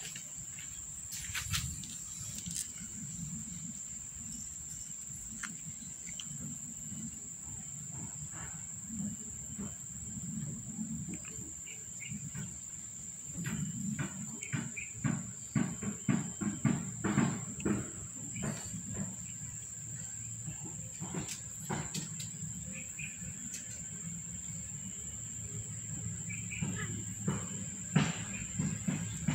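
A steady, high-pitched insect drone runs throughout. About halfway through and again near the end come bursts of rustling and light knocks.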